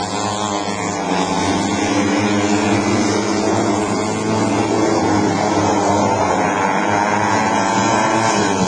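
Several junior speedway motorcycles racing together, their engines running hard in a steady, overlapping drone whose pitches waver up and down.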